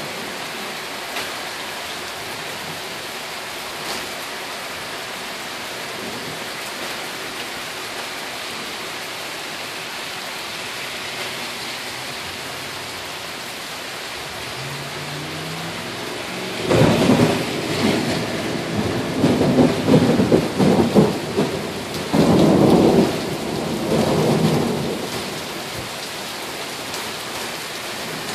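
Steady rain falling, then, a little past halfway, a loud clap of thunder that rumbles on in several swells for about eight seconds and dies back into the rain.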